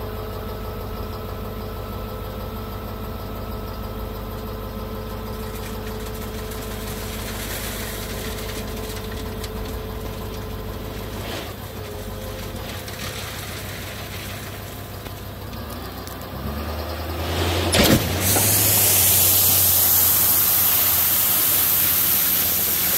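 Ford F-550 dump truck's engine running steadily; about 17 seconds in, a sharp clank, then a loud, continuous rushing hiss as #57 crushed stone pours out of the bed through the opened tailgate.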